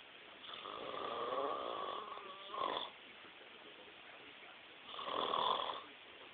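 A man snoring: two snores, a long one lasting about two and a half seconds, then a shorter one of about a second, two seconds later.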